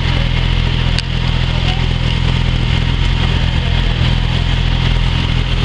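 Motorcycle engine idling steadily, a constant low hum.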